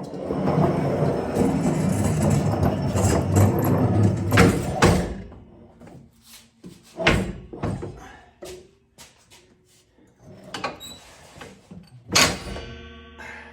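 Loud rustling and scraping of parts being handled for about five seconds, then scattered sharp knocks. Near the end a hard knock is followed by a ringing plucked guitar note as background music comes in.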